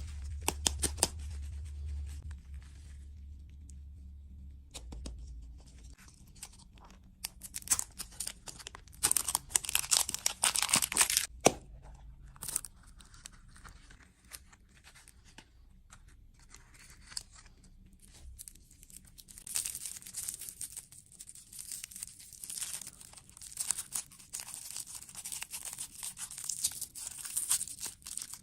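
Plastic packaging being torn open and crinkled in irregular rustling bursts, over a low hum in the first few seconds.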